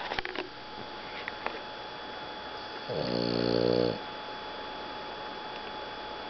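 Boston Terrier snoring in its sleep: one long snore about three seconds in, with a few faint clicks near the start.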